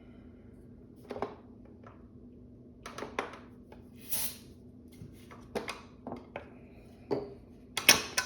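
Scattered light metallic clinks and knocks from handling the outboard motor and its starting gear, with one short hiss about four seconds in and the loudest knocks near the end. The engine is not running.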